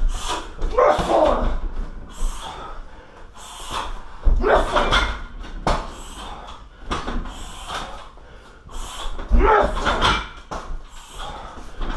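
Strikes landing on a 60 kg heavy bag in a Muay Thai workout, a dull thud every second or two. The hardest blows, about three of them, come with a short shout.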